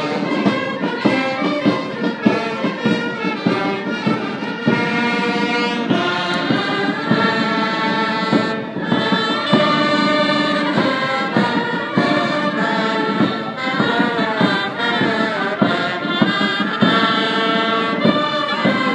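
Military brass band playing a tune, with trumpets and trombones carrying a sustained melody.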